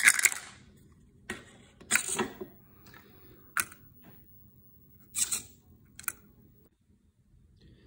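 Small metal boutonniere pin backs clicking and rattling against a 3D-printed plastic funnel worked by two servos: a handful of sharp clicks and short rattles, irregularly spaced about a second or so apart.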